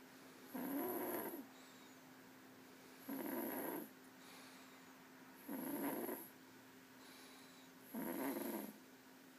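Snoring in sleep: four snores, each under a second, about every two and a half seconds.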